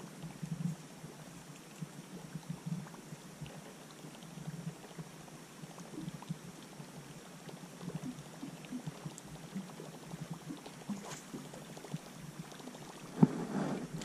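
Small waves lapping and gurgling against a boat's hull, with scattered faint ticks. A louder knock with a short clatter comes near the end.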